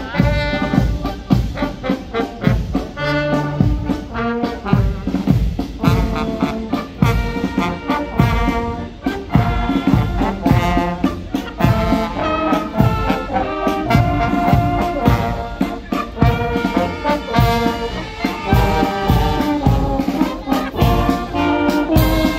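Marching brass band playing a march, with trombones and trumpets over a steady drum beat of about two strokes a second.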